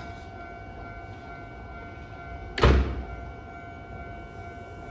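A door of a stopped Kintetsu 1620-series electric train shuts with a single heavy thunk about two and a half seconds in, over a faint steady hum.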